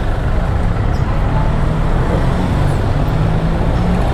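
Riding a motorbike through town traffic: a loud, steady engine drone and road rumble, with other scooters running close alongside.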